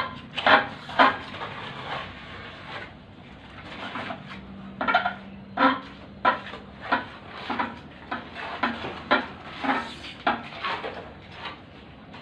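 An uneven series of sharp clinks and knocks, like metal striking hard material, about twenty strikes with short gaps between them.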